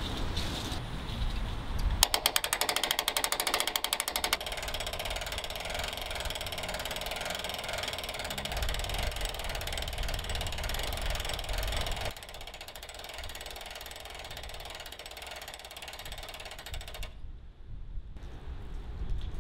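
Hand winch ratchet clicking as its cable hauls the top section of a telescoping metal mast upward. It gives a quick run of rapid clicks about two seconds in, carries on as a steadier mechanical clicking, and turns quieter about twelve seconds in.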